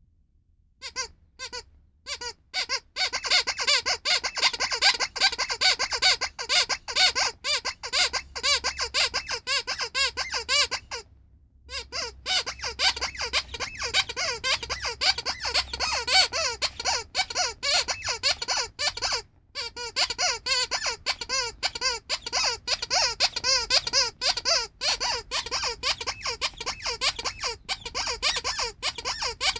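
Rubber bunny squeaky toy squeezed over and over in quick succession, giving fast runs of high, wavering squeaks. The squeezing starts about a second in, pauses briefly near the middle, then carries on.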